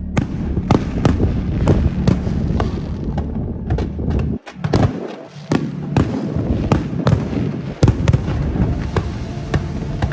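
Aerial fireworks bursting in quick succession: a dense run of sharp bangs and crackles. The sound drops out briefly about four and a half seconds in.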